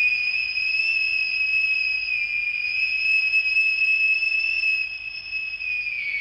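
Biscuit factory's whistle blowing one long, steady, high note to mark the end of the working day. Near the end it begins to sag in pitch as it dies away.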